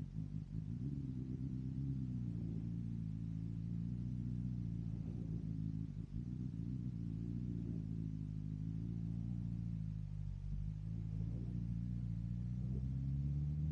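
2022 BMW S1000RR inline-four engine running steadily at low revs through an M4 aftermarket exhaust, its revs starting to climb near the end.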